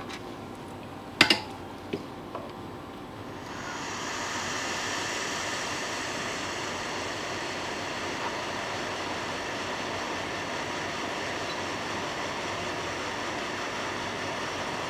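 A few sharp clicks, then about three and a half seconds in a hot air rework gun starts blowing with a steady airy hiss, melting solder paste through a BGA stencil to reball a phone IC.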